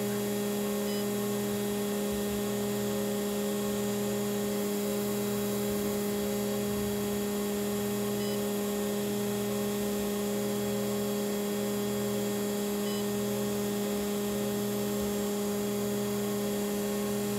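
Steady electrical hum, with a low undertone that swells and fades about once a second.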